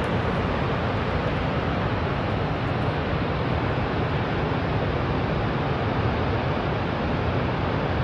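Niagara Falls' falling water: a steady, unbroken rush of noise.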